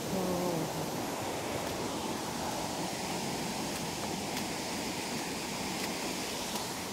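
Steady, unbroken rush of flowing water from a nearby creek and waterfalls.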